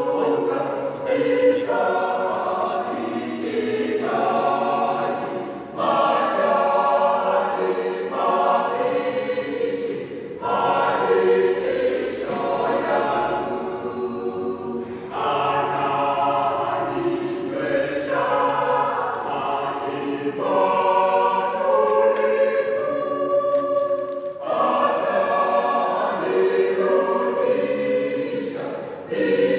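A church choir of men and women singing a song together, in phrases that pause briefly every four to five seconds.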